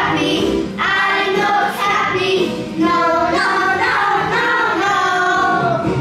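Several children's voices singing a song together.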